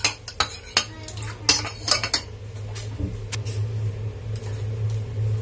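Metal spoon clinking against a ceramic bowl while stirring a thin sauce: a quick run of clinks in the first two seconds, then a few scattered taps.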